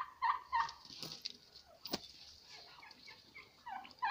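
Domestic turkeys gobbling in a quick run of calls in the first second, then fainter scattered poultry calls, with a single sharp click about two seconds in.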